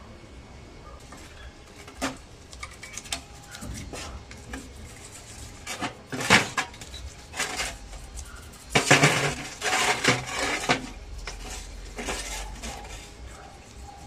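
Metal motorcycle steering-stem parts clinking, knocking and scraping against each other in a plastic wash tub as they are handled and worked on. The clatter is loudest about six seconds in and again from about nine to ten and a half seconds.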